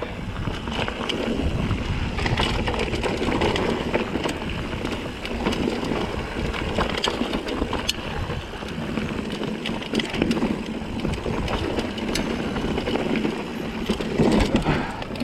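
Mountain bike riding down a rocky trail: steady rough rolling noise from the tyres on rock, with frequent sharp clicks and rattles from the bike jolting over the stones.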